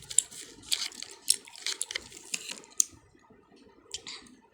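Irregular run of short, sharp wet clicks and crackles, dense for about three seconds and then a few more near the end: close-up sounds of a small candy being eaten and handled.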